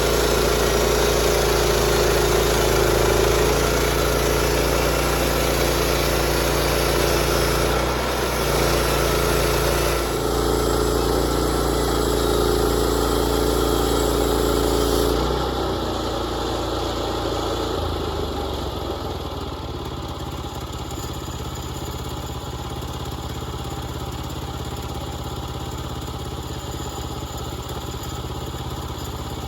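Engine-driven band sawmill running hard with the blade cutting through a pine log. About fifteen seconds in the cutting sound stops, and the engine settles into a lower, steadier running, as at idle.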